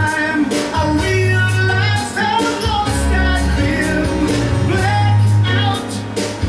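A song playing with a singer, guitar, steady bass and drums.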